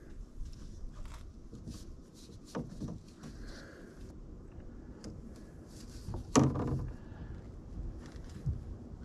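PVC drain pipe being handled and fitted into a joint overhead, with scattered light plastic knocks and scrapes and one louder knock about six seconds in.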